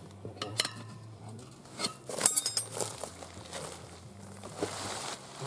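A motorcycle tyre and spoked wheel being handled on a plastic tarp: scattered light knocks and rubbing, with one sharp metallic clink a little over two seconds in.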